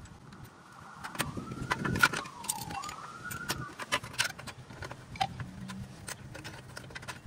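Light metallic clicks and scrapes of needle-nose pliers working a spring off the rear parking-brake shoes of a Chevy Equinox. A faint tone in the background rises, falls and rises again for a few seconds, starting about a second in.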